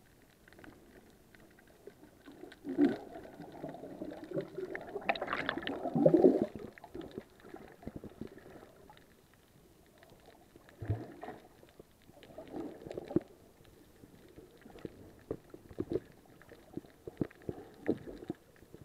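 Muffled underwater gurgling and sloshing picked up by an SJCAM SJ4000 action camera in its waterproof housing, with scattered knocks. It is loudest about three to six seconds in and swells again briefly later.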